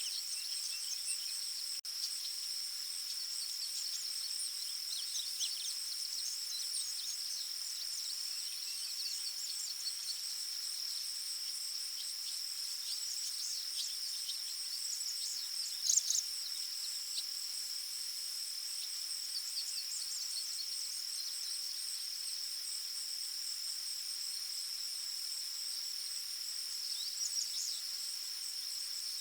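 Forest ambience: a steady high-pitched insect trill, with small birds chirping on and off over it and one louder, brief bird call about halfway through.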